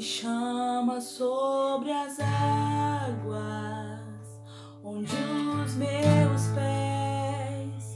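A woman singing a slow Portuguese-language worship song while strumming an acoustic guitar, holding long notes. The music drops to a brief lull about four and a half seconds in, then picks up again.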